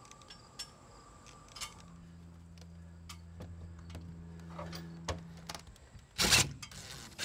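A few faint clicks from a caulking gun, then near the end a cordless impact driver fires one short, loud burst as it drives a lag bolt through the awning's mounting bracket.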